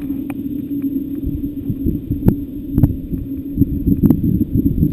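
Muffled low thumps and a few sharp clicks, over a steady low hum, the sound of hands handling gear close to the microphone. The thumps bunch up from about halfway through.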